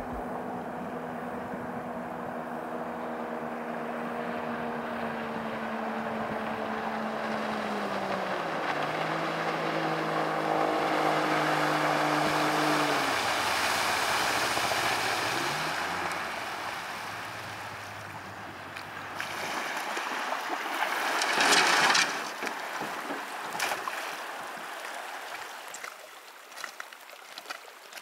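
Outboard motor of a small river motorboat running as the boat approaches, throttled down in steps, with a brief rev about halfway, then cut about two-thirds of the way in. A short loud rush of noise follows as the boat comes in to the bank.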